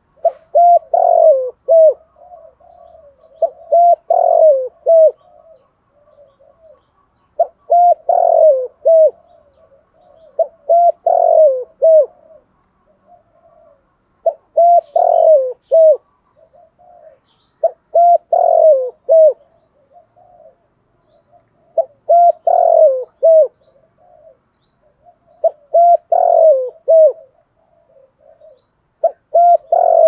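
Spotted dove cooing: a loud phrase of several coo notes, repeated about every three and a half seconds, with softer coos between the phrases.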